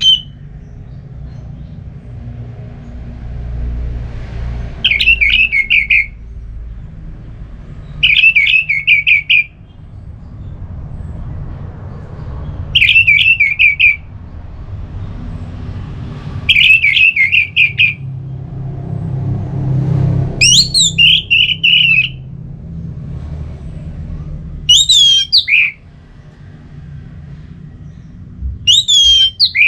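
Orange-headed thrush singing in the loud, clear 'ngeplong' style: seven short phrases spaced about four seconds apart, each a quick run of notes tumbling downward. The later phrases open with higher whistled notes that slide down. A steady low hum runs underneath.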